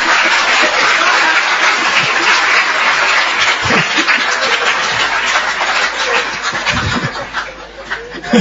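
An audience laughing and clapping, dense and loud at first, then thinning out and dying down near the end.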